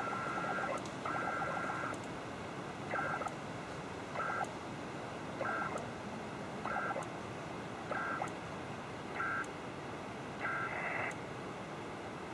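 PACTOR-II data signal on an HF transceiver: short two-tone chirps about every 1.25 s, with a few longer bursts, over steady band hiss. This is the ARQ handshake between the stations as the email session is closed down.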